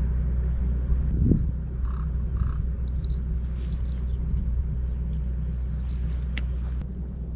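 Two short, harsh caw-like calls about two seconds in, over a steady low rumble.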